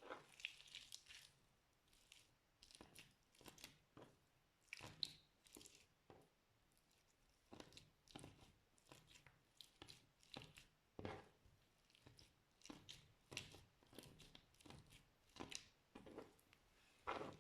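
Slime being pressed and stretched by hand, making a string of short, sudden squishy pops and clicks at irregular spacing, one or two a second.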